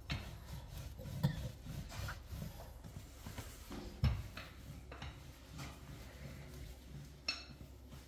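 Rolling pin rolling out pizza dough: rubbing strokes with scattered soft knocks, a sharper knock about four seconds in.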